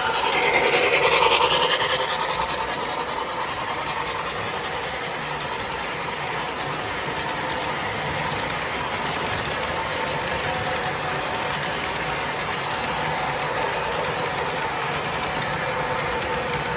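Model Western Maryland M2 Challenger articulated steam locomotive running on its track, with a steady run of fast clicking wheels and a motor hum. It is louder in the first two seconds, with a pitched tone over the running noise.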